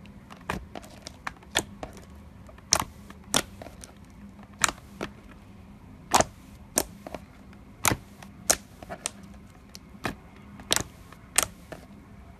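Clear glitter slime being pressed and poked with fingers, making sharp, irregular clicking pops, about one to two a second, as trapped air bursts out of it.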